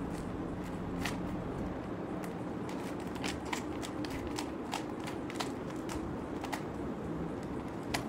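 Plastic 3x3 Rubik's cube being twisted by hand while it is solved, its layers turning with quick, irregular clicks over a steady low hum.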